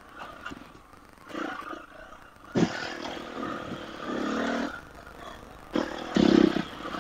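Husqvarna FE 350 dirt bike's single-cylinder four-stroke engine on a muddy trail, running low and quiet, then rising in short bursts of throttle, the strongest about four seconds in and again near the end.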